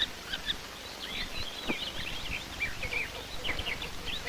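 Great spotted woodpecker nestlings calling at a feeding: many short, high-pitched chirps and squeaks, over a steady hiss. A click comes about halfway through.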